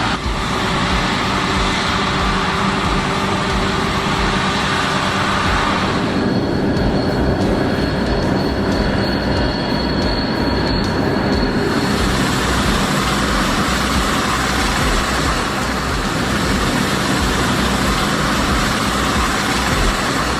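John Deere X9 1100 combine harvester working, a loud, dense mechanical rumble and rattle. The sound shifts abruptly about six and twelve seconds in, with a thin high whine between those two points.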